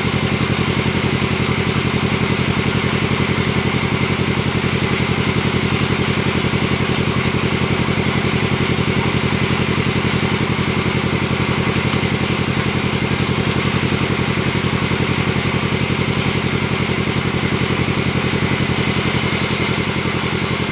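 Log band sawmill machine running with a steady engine-like drone. A brighter hiss joins in near the end.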